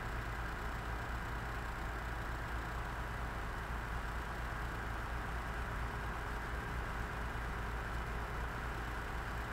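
Heavy equipment engine idling steadily, a constant low rumble with a faint steady hum.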